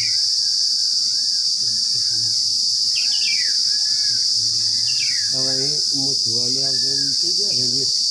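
A steady, high-pitched insect chorus drones unbroken, with birds chirping over it, including a few quick falling chirps.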